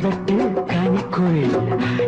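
Instrumental passage of a Tamil film song: melodic instruments with some sliding notes over percussion, with no singing.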